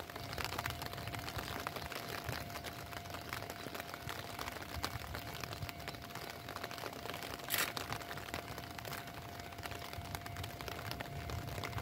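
Quiet trackside outdoor ambience: a faint even hiss speckled with tiny crackles, under a faint steady high tone, with one short hiss about seven and a half seconds in.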